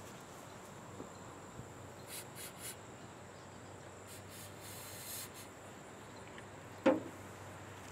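Short hisses of an aerosol can of ether starting fluid being sprayed for the engine, a few quick puffs and then a longer one, over a steady high drone of insects. A single sharp knock comes near the end.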